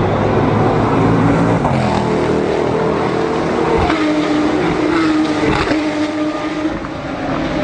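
Sports racing cars passing at speed at the finish line, several engine notes each falling in pitch as a car goes by.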